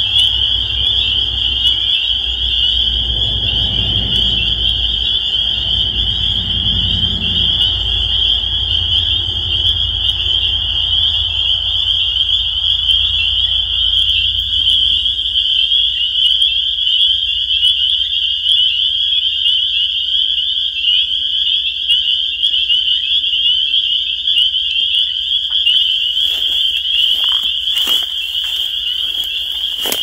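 Dense chorus of spring peepers: many high, short, rising peeps overlapping without a break. A few knocks and rustles come in near the end.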